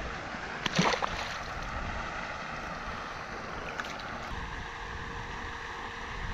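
Steady wind noise on the microphone, with a short splash about a second in as the released largemouth bass goes back into the water.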